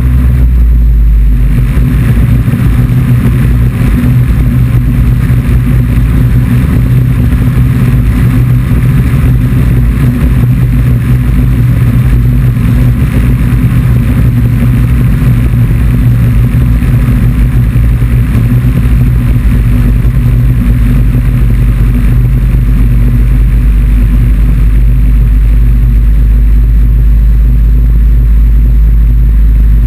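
Yarrow Arrow ultralight's engine and propeller running steadily in level flight: a loud, unvarying drone with no change in pitch.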